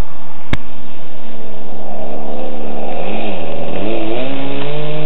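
Radio-controlled Piper Cub model's engine running steadily on approach. Its pitch wavers as the plane touches down on the grass, then climbs as the throttle opens for a touch-and-go. A sharp click sounds about half a second in.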